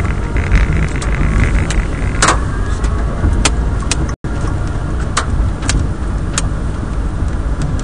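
Car cabin on the move in a storm: a steady low road and engine rumble under a haze of rain, with irregular sharp knocks on the car about once or twice a second. The sound cuts out for an instant about four seconds in.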